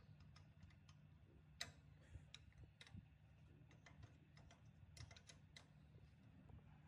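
Near silence over a low steady hum, broken by faint, irregular light clicks and taps.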